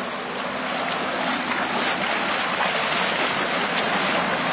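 Steady water churning and splashing as an SUV drags a wooden plank leveller through a flooded, muddy field, with an engine hum running underneath.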